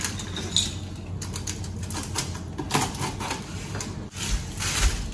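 Fingers scratching and picking at the packing tape on a cardboard box, making a run of irregular scratchy clicks and taps on the cardboard, with a couple of dull thumps near the end.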